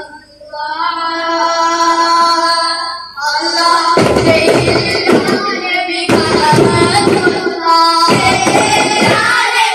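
A long held sung note, then from about three and a half seconds in a boys' chorus singing a devotional song in a steady rhythm to daf frame drums struck by hand (daf muttu).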